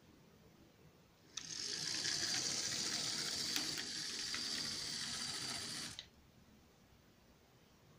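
Tyco HO-scale EMD SD24 model locomotive running along the track, its small electric motor and gears giving a steady whir with a few faint clicks. The whir starts about a second and a half in and cuts off at about six seconds.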